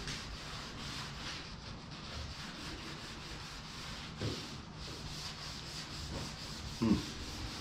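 Steel-wool soap pad scrubbing back and forth over a painted steel car hood, lifting the top layer of paint that oven cleaner has softened. Near the end there is a short low sound, the loudest moment.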